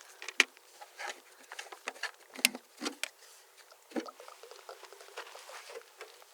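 Footsteps crunching through dry leaves and twigs on the forest floor, irregular crackles and snaps with a few sharper ones.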